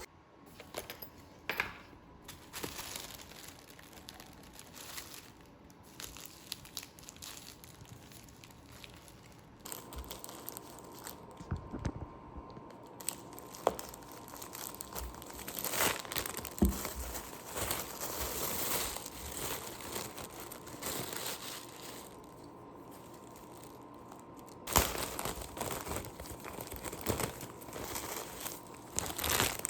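Crinkling and rustling, like handling packaging, with scattered light clicks and knocks, louder in the second half.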